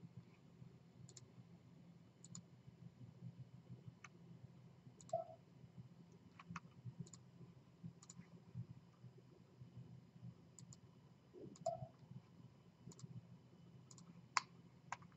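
Computer mouse buttons clicking now and then, some in quick pairs, over a faint steady low hum.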